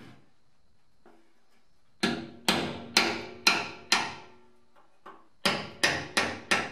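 Hammer tapping a thin tool against a retaining clip on a steel fuel tank to knock the clip off, each strike a sharp metallic knock that rings briefly. There are five strikes about half a second apart, then a pause and a quicker run of about five more near the end.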